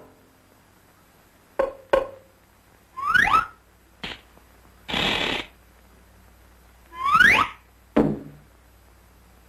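Sparse cartoon sound effects: a few sharp knocks, two quick rising whistle-like glides, and a short hiss midway.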